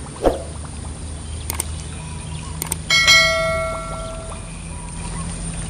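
Subscribe-button overlay sound effect: a short swoosh near the start, a few sharp clicks, then a bell chime about three seconds in that rings and fades over a second and a half. A low steady outdoor rumble runs underneath.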